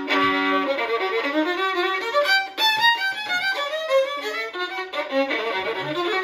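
Violin playing a fast Romanian Roma tune: a held note at the start, then quick runs of notes.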